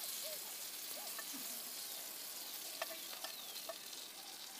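Food frying in a pan, a steady sizzle, with a few light clicks of metal tongs against the pan about three seconds in.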